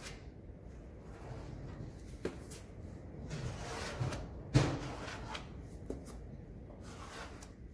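Body filler being worked into a car's door gap with a spreader: a few short scraping strokes, with one sharp knock about halfway through.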